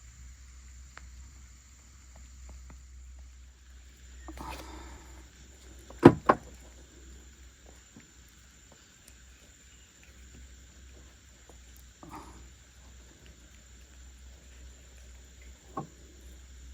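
Quiet outdoor ambience with a steady high insect drone, broken by two sharp knocks in quick succession about six seconds in, with a few softer knocks and rustles before and after.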